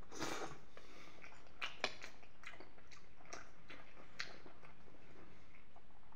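Close-up mouth sounds of someone eating creamy penne with peas in béchamel: wet chewing and smacking, with a few sharp clicks, the loudest near two seconds in.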